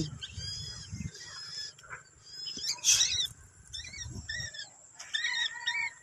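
Pet parrots calling: a series of short, arching chirps, with a louder, harsher screech about three seconds in.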